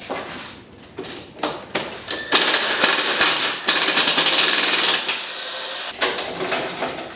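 Work on a metal shipping crate: a few knocks, then a loud, fast rattling for about two and a half seconds, then a quieter stretch.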